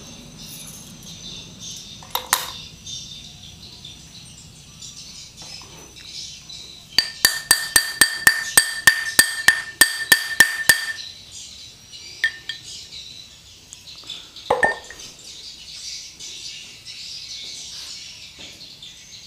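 Round aluminium bar striking a steel gearbox shaft from a scooter's final drive: a fast run of about sixteen metallic taps, some four a second, each ringing briefly, with single knocks before and after.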